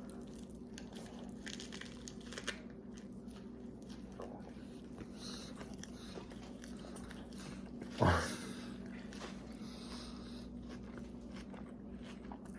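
Close-up eating sounds: biting into and chewing a soft flour tortilla wrap filled with ham, lettuce and cheese, with small crunches and wet mouth clicks. About eight seconds in, a brief louder sound slides quickly down in pitch.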